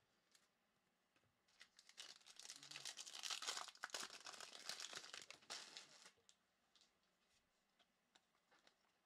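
A foil trading-card pack wrapper being torn open and crinkled by hand: a burst of crackling that starts about two seconds in and lasts some four seconds, followed by a few faint clicks as the cards are handled.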